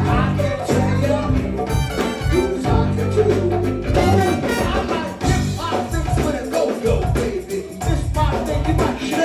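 A go-go band playing live music: a steady, percussion-driven groove with melody lines on top.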